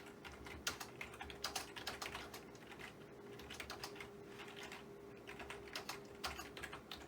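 Typing on an Onn wireless PC and Mac keyboard: a run of irregular, fairly faint key clicks as a short sentence is typed out.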